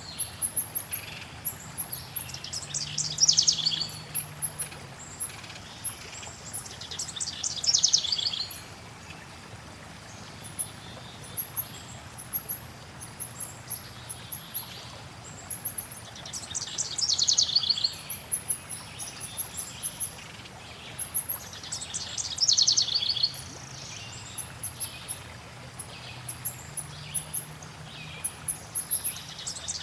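Forest birds singing. A songbird repeats a fast, falling trill five times, amid many short, very high chirps, over a steady hiss of flowing water.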